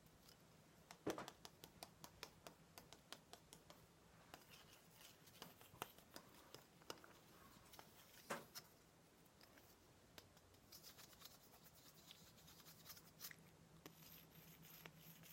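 Quiet, irregular taps, clicks and scratches on a small ruler, handled close to the microphone as an ASMR trigger.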